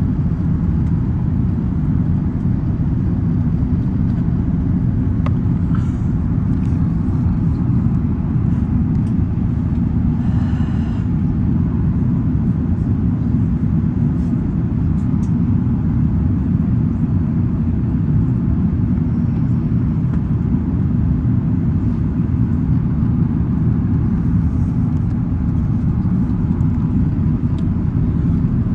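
Steady low rumble of an Airbus A380's engines and airflow, heard from inside the passenger cabin.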